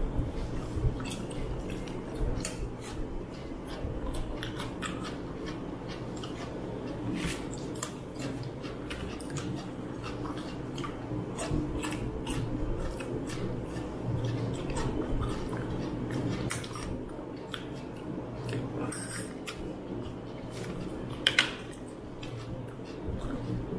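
Eating with the hands: close-up chewing and the small wet clicks and smacks of fingers mixing rice and curry on plates, scattered through, over a low steady hum. Two sharper clicks stand out near the end.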